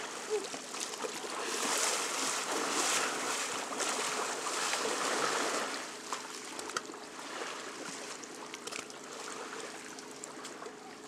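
Shallow water splashing and lapping around a person wading out of it, dying down about six seconds in, over a steady flow of water.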